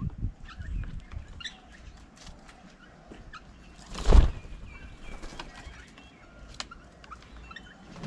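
Wing flaps of a common myna landing on a wooden bird table close to the microphone: one loud, short flutter about halfway through. Short bird calls come and go around it.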